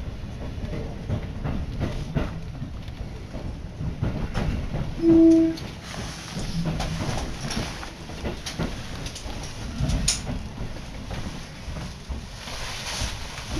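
Inside a moving electric commuter train: a low rumble of wheels on track, with frequent clicks over rail joints and points. About five seconds in there is a short, loud, steady tone, and about ten seconds in a heavier clunk.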